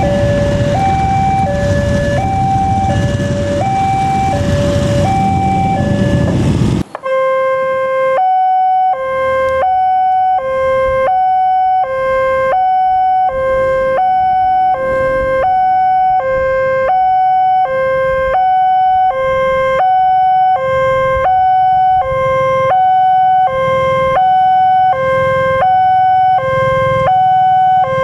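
Indonesian railway level-crossing warning alarm: an electronic two-tone signal stepping between a high and a low note about once a second, warning that a train is approaching. For the first several seconds it sounds over the rumble of a passing passenger train. About seven seconds in, the train noise cuts off and the alarm continues alone.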